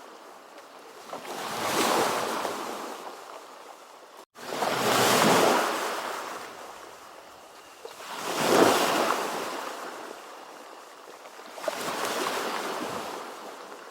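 Ocean waves breaking and washing up the shore, four surges that swell and fade in turn. The sound cuts out completely for an instant about four seconds in.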